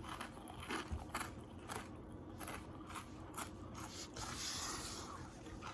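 Close-up eating sounds: a person chewing, with soft, irregular crunching clicks and mouth noises.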